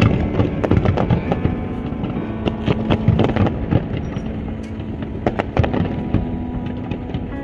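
Fireworks display: many sharp cracks and bangs of shells bursting in quick, irregular succession over a deep rumble.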